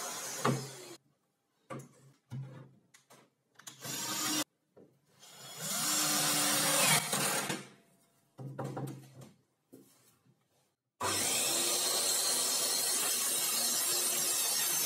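Pieces of laminated chipboard knocked, lifted and slid across a workbench: scattered thuds and rubs with short quiet gaps. About eleven seconds in, a steady rushing machine noise starts abruptly.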